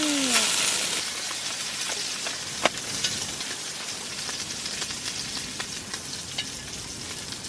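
Corn cheese sizzling and crackling in a pan as it cooks, louder for the first second and then settling to a steady sizzle, with one sharp click about two and a half seconds in.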